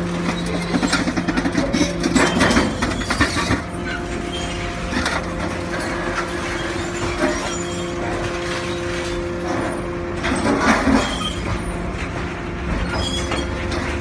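Hydraulic scrap metal shear at work on scrap car-body metal: a steady machinery hum, with scrap metal clattering and crunching from about half a second to three and a half seconds in, and again briefly near eleven seconds.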